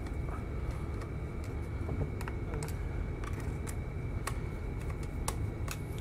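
Irregular sharp clicks and taps of a small T6 Torx screwdriver working the screws on a laptop's bottom cover, over a steady low background hum.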